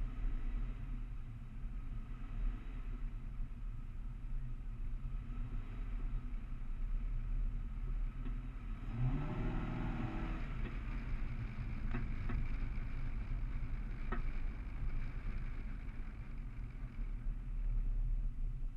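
A car driving, heard from a hood-mounted camera: steady engine and road rumble, with the engine speeding up about nine seconds in.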